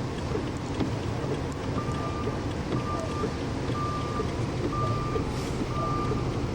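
A vehicle's reversing alarm beeping: one steady high tone about once a second, starting about two seconds in, over a steady rush of wind and surf noise.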